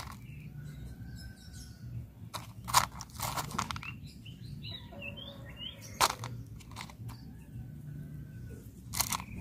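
A few short crunches and scrapes of hard banana seeds being set into a crumbly growing medium by hand. Birds chirp in the background, with a burst of chirps about halfway through.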